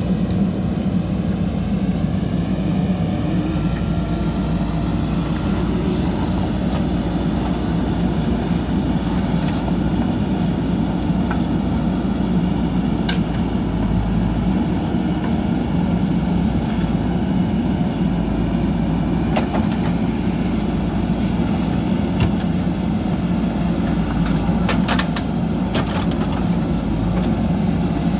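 JCB backhoe loader's diesel engine running steadily under work, with a few short knocks about halfway through and a couple near the end.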